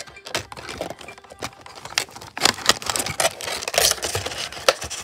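Clear plastic blister tray crackling and clicking as it is handled and flexed, a quick irregular run of sharp clicks and crinkles.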